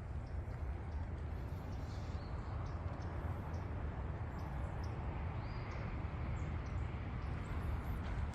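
Scattered faint bird chirps over a steady low rumble.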